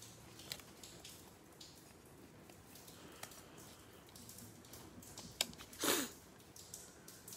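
Faint handling noise of glossy trading cards in gloved hands: soft clicks and rustles as cards are slid apart and flipped, with a sharp click and then a brief louder swish of card sliding over card a little before the end.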